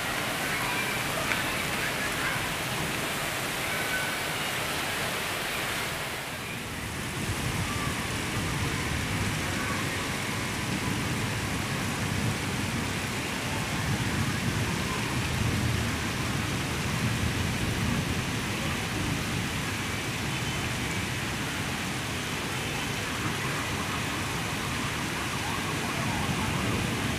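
Heavy rain pouring steadily onto concrete rooftops, a constant hiss. The hiss dips briefly about six seconds in, and a deeper rumble sits under it from about eight seconds on.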